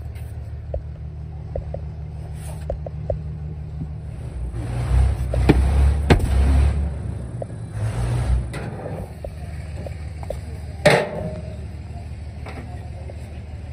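Workshop machinery running with a steady low hum, which swells into a louder rumble about a third of the way in and again a little later. Light metal clinks come early, and a single sharp metallic knock with a brief ring comes near the end.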